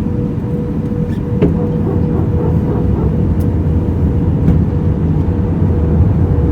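Aircraft noise: a steady low rumble with a constant mid-pitched hum over it.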